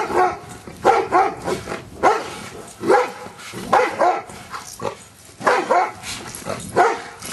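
Giant Schnauzer barking repeatedly in a steady series, the barks often coming in quick pairs, about one to two a second.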